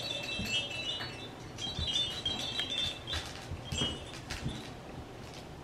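Tinkling chime of a baby toy rattle jingling in several short runs as a French Bulldog puppy bites and tugs at it, with soft knocks and rustles of puppies playing on a blanket.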